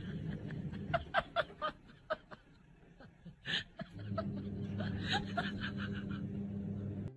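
A person snickering off camera in short, quick bursts of laughter, twice: about a second in and again about five seconds in. A steady low hum runs underneath.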